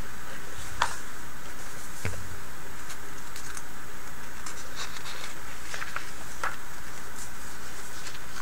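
Pages of a thick glossy paper catalog being handled and turned, giving a few short crisp rustles and taps over a steady background hiss.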